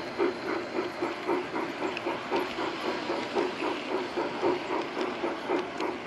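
G-gauge model train running along garden railway track, heard from aboard one of its cars: a steady rhythmic beat about three times a second over a constant hiss.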